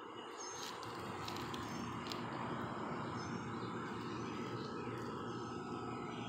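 Outdoor ambience: a steady rustling background with brief high bird chirps now and then. A few clicks and rustles from the handheld phone moving come about one to two seconds in.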